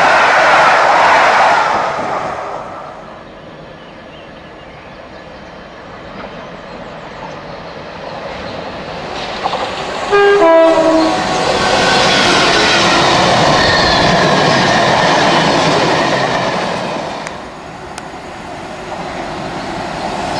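Rumble of fast-passing coaches fading away over the first couple of seconds. About ten seconds in, a Class 66 diesel freight locomotive sounds a short horn, then the noise of the locomotive and its tank wagons grows loud and steady for several seconds, dips, and builds again near the end.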